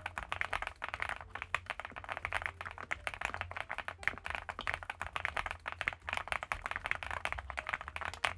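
Fast, continuous typing on an Infi75 gasket-mount mechanical keyboard: a dense stream of key strikes with the soft, foam-damped 'kotokoto' sound, over a steady low hum.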